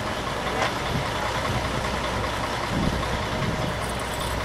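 Heavy vehicle engine idling: a steady low rumble, with a faint tick about two-thirds of a second in.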